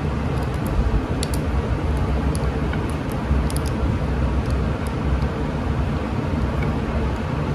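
A few light clicks from a plastic speed-sensor wiring plug being handled as a wire terminal is pushed into it, over a steady low background rumble.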